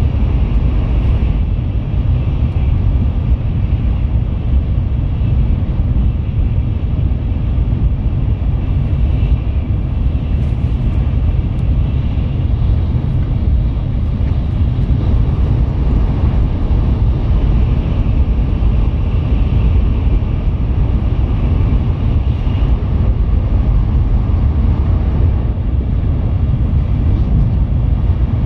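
Steady low rumbling noise inside the passenger cabin of a Tokaido Shinkansen train running at high speed.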